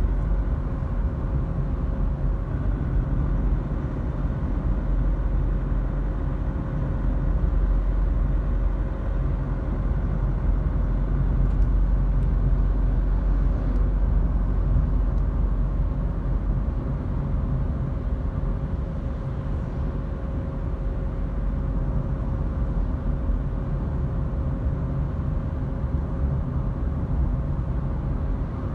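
Steady low rumble of road and engine noise inside a moving car's cabin, with a faint steady hum running through it.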